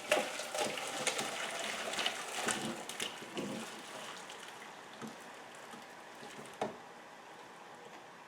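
Boiled pears and their cooking water being poured off from a pot, splashing and dripping irregularly, then thinning to a faint trickle after about four seconds, with a single knock a little before the end.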